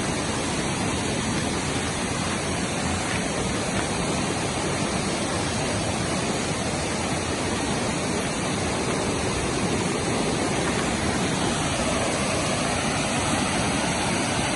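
Rushing water of a small river swollen after heavy rain, a steady, even noise that grows slightly louder in the second half.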